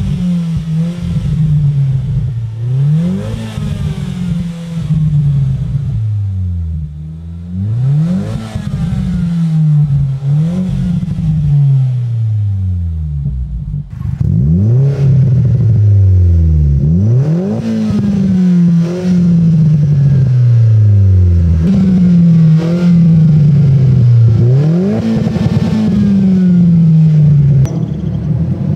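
Opel Corsa D GSI's turbocharged four-cylinder revved again and again through an exhaust whose factory pre-cat has been swapped for a high-flow catalytic converter. Each time the revs shoot up, then fall away more slowly, about a dozen times over.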